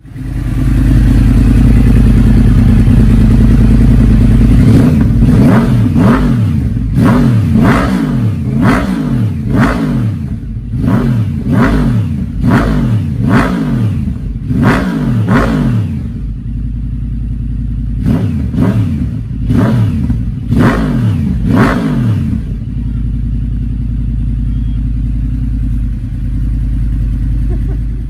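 Yamaha YZF-R1 (RN22) crossplane inline-four idling, then revved in about a dozen quick throttle blips, each rising and dropping straight back, a short stretch of idle, five more blips, and back to a steady idle until the sound cuts off.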